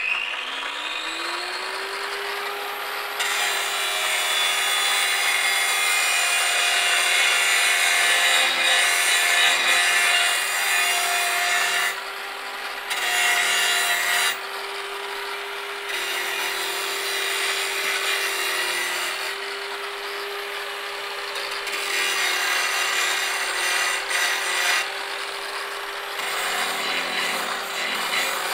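Angle grinder: its motor winds up to speed with a rising whine and settles into a steady spin. About three seconds in, the disc starts grinding against the work with a harsh rasping noise. The grinding comes in several passes, breaking off for a second or two between them while the motor keeps spinning.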